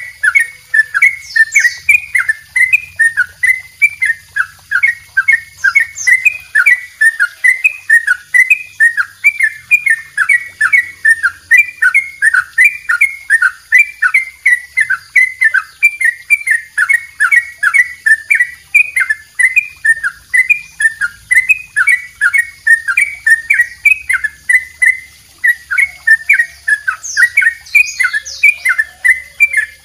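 A caged yellow-vented bulbul (trucukan) singing a long, unbroken run of loud, downward-sweeping chirps, about three a second. This is the 'double ropel' repeated-note song kept as master audio for tutoring other songbirds.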